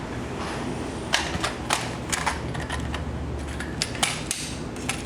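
Irregular sharp clicks and taps of hand tools and small parts being handled while a hair clipper is taken apart.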